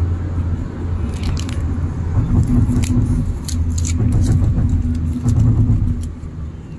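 Moving car heard from inside the cabin: a steady low rumble of engine and tyres on the road. A steady hum joins in about two seconds in and fades near the end, and there are a few scattered sharp clicks in the middle.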